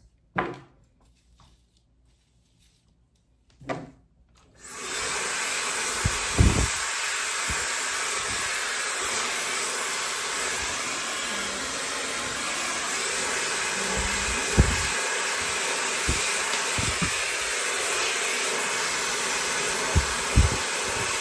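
High-speed hair dryer with a 110,000 RPM motor, starting up about four seconds in after a couple of soft knocks, then blowing steadily with an even rushing hiss. A few brief low thumps of handling sound over it.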